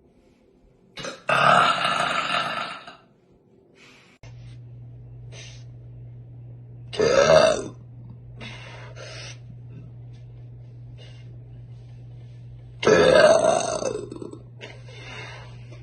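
A woman burping loudly three times in deep, bassy burps: a long one about a second in, a short one about halfway through, and another long one near the end.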